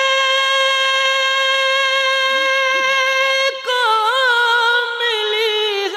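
Male voice singing an Urdu naat with no instruments: one long held note, then, after a short break about three and a half seconds in, ornamented runs that waver up and down in pitch.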